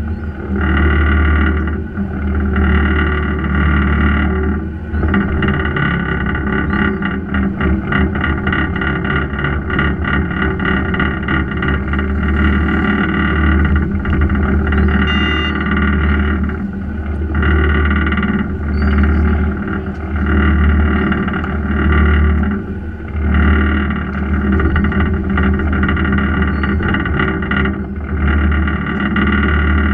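Fishing boat's engines running steadily, with brief dips in level every few seconds.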